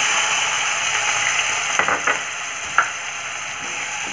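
Chopped onion sizzling in hot mustard oil in a kadhai: a steady hiss that eases a little after about two seconds. A few light taps and scrapes come from a wooden spatula stirring it.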